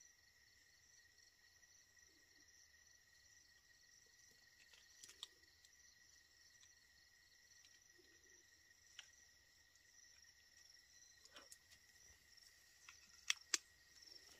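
Faint, steady trilling chorus of night insects, with a few soft scrapes and two sharp clicks near the end.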